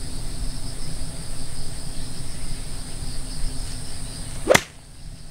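A 52-degree golf wedge strikes the ball once, sharply, about four and a half seconds in, over steady high-pitched insect chirring.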